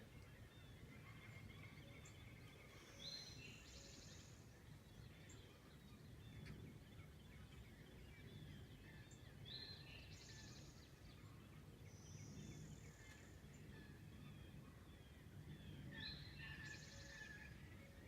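Faint woodland ambience with a small bird singing a short high phrase, a brief note then a quick trill, three times about six seconds apart.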